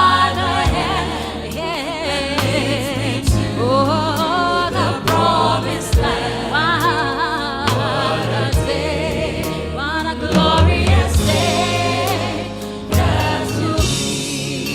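Gospel music between verses: a band with drums under wavering sung melody lines with no clear words.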